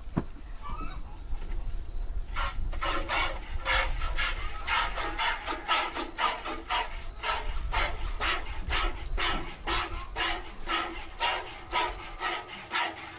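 A cow being milked by hand: milk squirting into a bowl in a steady rhythm of about two or three squirts a second, starting about two seconds in. Wind rumbles on the microphone underneath.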